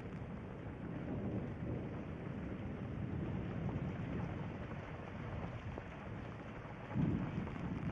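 Steady rain falling, with a low rumble of thunder underneath; the rumble swells suddenly louder near the end.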